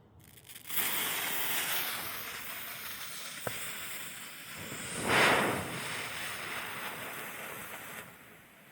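Red, white and blue smoke novelty igniting and hissing steadily as it pours out smoke. The hiss sets in under a second in, surges about five seconds in, and eases off near the end.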